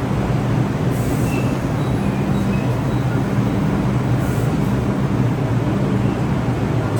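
New York City Subway R62A train running on the track: a steady rumble with a low hum that fades in and out, and a few brief hisses.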